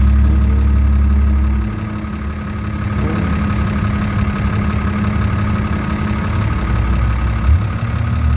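Vehicle engine idling with a steady low rumble, louder for the first couple of seconds and again near the end, with one short bump about seven and a half seconds in.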